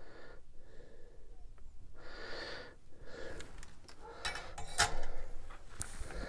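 Breathing near the microphone, then a run of light clicks and clatter from soldering tools and wires being handled, the sharpest clicks nearly five seconds in.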